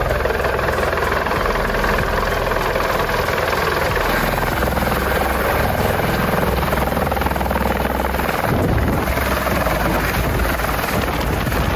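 Helicopter hovering low and coming in to land, its rotor and engine running steadily and loud throughout.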